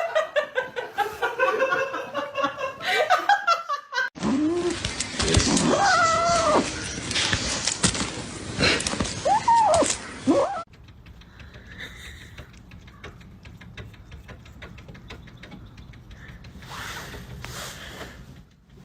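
A domestic cat meowing, two drawn-out rising-and-falling meows, cut in between laughter near the start and a quieter stretch of faint ticks after a sudden cut.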